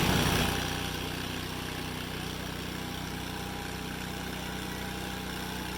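An engine idling steadily, a low even drone with no change in speed. A louder sound fades out in the first half second.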